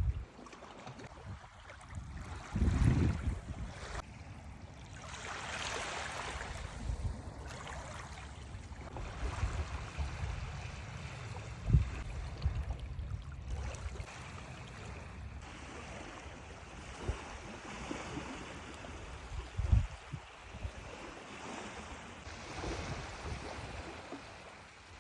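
Baltic Sea waves washing on the shore, a steady rushing that swells and falls back, with a few short low thumps.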